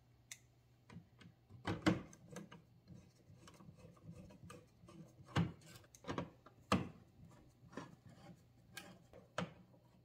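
A small screwdriver driving screws into a light switch and dimmer cover plate: irregular clicks, scrapes and light knocks of the driver and screws against the plate, the loudest about two, five and a half, and seven seconds in.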